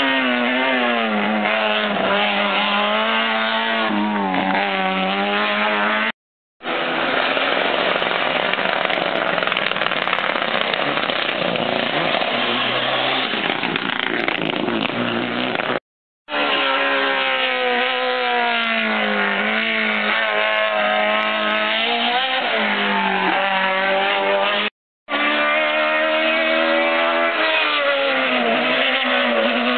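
Hill-climb competition cars' engines revving hard as they pass one after another, the pitch climbing and dropping with the gear changes. The sound breaks off abruptly three times, where short clips are joined.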